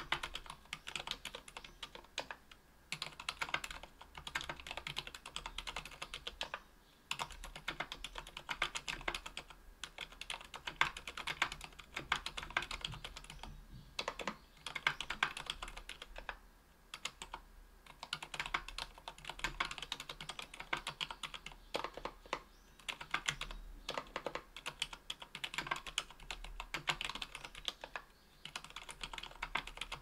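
Typing on a mechanical keyboard fitted with lubed Healios silent linear switches (63.5 g) in an aluminium 60% case with an aluminium plate and GMK keycaps. The keystrokes come in fast runs, broken by short pauses every few seconds.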